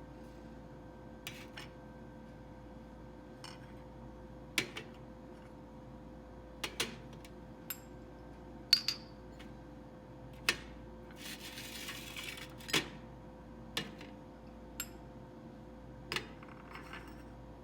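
Light clinks and taps of small hard objects, about a dozen scattered irregularly, one near the middle ringing briefly, with a short rustling hiss just after it. A steady faint hum runs underneath.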